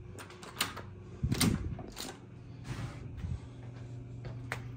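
Hotel room door's lever handle and latch being worked: a run of clicks and rattles, the loudest knock about a second and a half in, with a low steady hum coming in after it.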